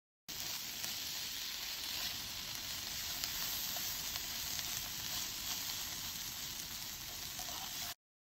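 Sliced sausage rounds frying in a small camp pot, a steady sizzle.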